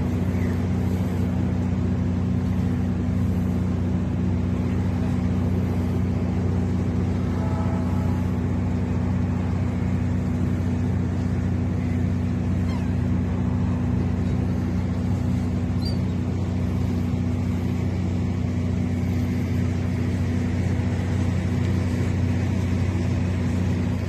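Boat engine running steadily, heard from on board: a low, even drone that does not change.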